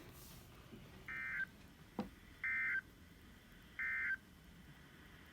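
NOAA Weather Radio SAME end-of-message (EOM) data tones: three short identical buzzy bursts about a second apart, which mark the end of an alert message. A single sharp click falls between the first and second bursts.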